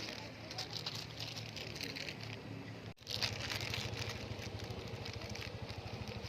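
A small engine running steadily with a fast, even throb, under crackling hiss. The sound cuts out for an instant about three seconds in and then carries on.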